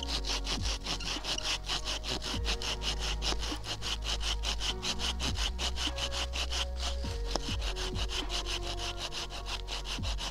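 Bahco Laplander folding saw cutting through a dry, partly rotten deadfall branch in quick, even back-and-forth strokes, rasping on both the push and the pull.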